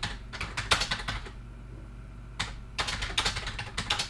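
Typing on a computer keyboard: a topic being typed into a web form, in two runs of quick key clicks with a pause of about a second between them.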